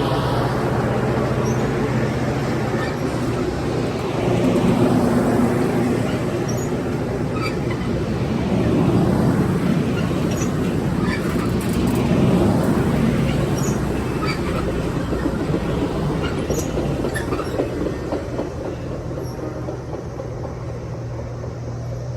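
Train moving through the station: a steady rumble of wheels on rail with a low motor hum and scattered short high squeaks, easing off somewhat over the last few seconds.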